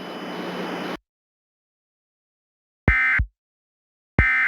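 Emergency Alert System end-of-message data bursts: short, identical bursts of digital data tones, two here about 1.3 s apart, the first nearly three seconds in. Before them a steady hiss that cuts off about a second in.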